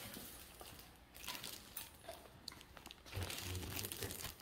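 Plastic packaging crinkling and rustling in short, uneven bursts, with a few small clicks. It grows busier about three seconds in.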